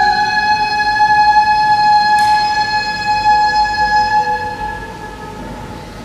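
A single held electronic note played through a music glove controller: a bright, overtone-rich tone at one steady pitch that fades away over about five seconds, with a brief soft swish about two seconds in.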